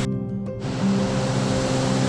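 Background music with a slow melody laid over the steady rush of a waterfall. The water noise cuts out for about half a second at the start, as at an edit, then comes back.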